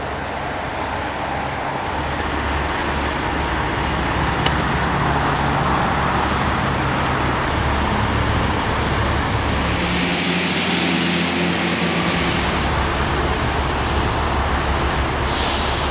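Road traffic noise: a steady rush of passing cars. About ten seconds in, a brighter hiss swells for roughly three seconds, then drops back.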